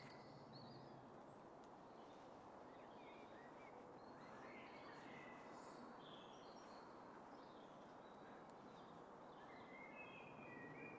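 Near silence: faint woodland ambience with scattered small bird chirps.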